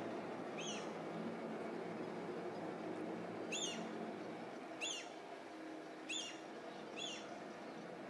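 A bird giving short, repeated calls, two near the start and four more spread through the second half, over a steady low background hum.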